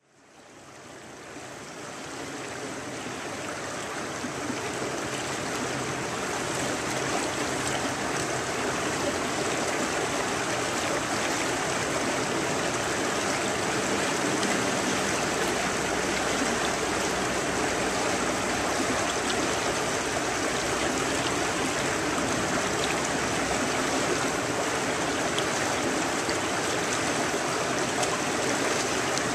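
Shallow river flowing past a wading angler in a steady rush of water, fading in over the first several seconds.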